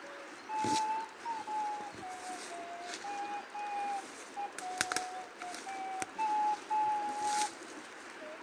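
A person whistling a slow tune: clear held notes stepping up and down, with a few sharp crackles over it.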